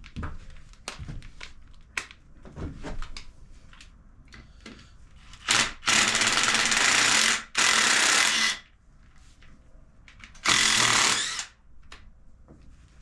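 Power impact gun spinning out the clutch cover bolts on a Yamaha YZ250 two-stroke, in several short bursts: a brief one, two longer runs back to back, then one more a couple of seconds later. Light clicks and knocks of tools and parts come in between.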